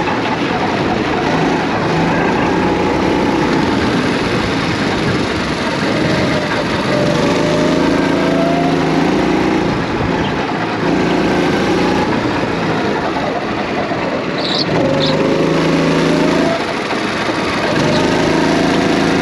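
Racing kart's small engine running hard under the driver, its pitch climbing on each straight and falling back into the corners, several times over.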